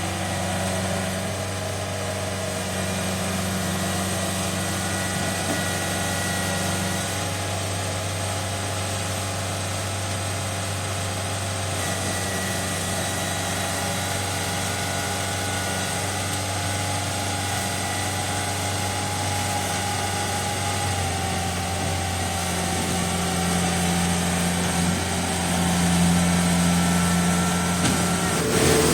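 Kubota DC70 combine harvester's diesel engine running steadily, with a steady low hum, growing a little louder near the end.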